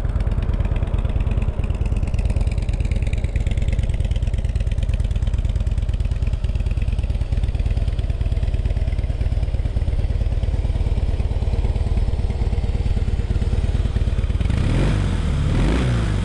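Harley-Davidson 103-cubic-inch fuel-injected Twin Cam V-twin idling steadily through chrome staggered exhaust pipes, with a deep, even pulse. Near the end the sound swells briefly as its pitch rises and falls.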